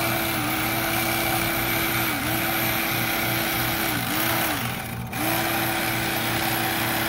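Black+Decker 9-inch electric carving knife running steadily while filleting fish. Its motor hum sags briefly in pitch several times as the blades bite under load, and it cuts out for a moment about five seconds in.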